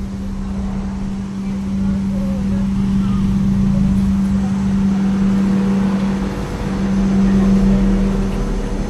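Engine running steadily: a loud, even low hum with rumble beneath it, swelling a little in the middle and again near the end.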